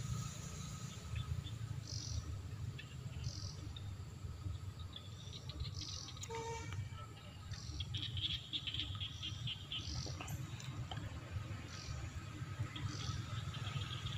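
Outdoor insect and bird sounds: a faint steady insect tone with short high chirps every few seconds and a rapid chirring trill about eight seconds in, over a low rumble.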